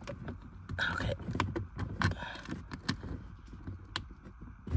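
A few short clicks and knocks from a plastic push-in trim clip being pressed into a car's interior side panel, with light rubbing and handling of the plastic trim.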